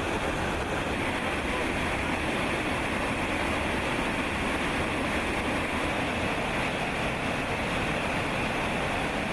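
Steady, unbroken rushing of fast-flowing water.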